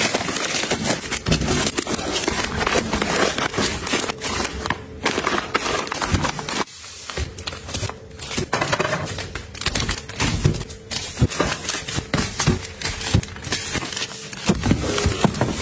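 Soft plastic packs of wet wipes crinkling as they are pushed into a stack, then packs of kitchen paper towels sliding and tapping onto a shelf, a busy run of rustles and light knocks with a short pause about six and a half seconds in.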